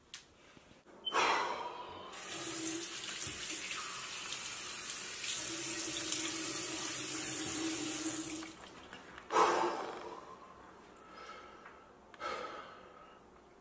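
Bathroom sink faucet running steadily into the basin while water is splashed onto a face. The flow comes on about a second in and shuts off after about seven seconds, followed by a few short, sharp sounds.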